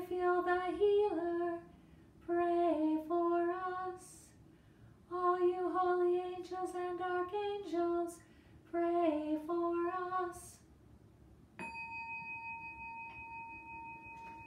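A woman's voice chanting unaccompanied in four short sung phrases. About eleven and a half seconds in, a single struck bell tone starts and rings on steadily, slowly fading.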